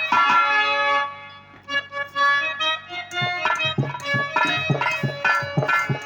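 Harmonium playing a sustained melody with dholak drum strokes: an instrumental interlude in Bhojpuri birha folk music. The drumming is strongest from about two seconds in.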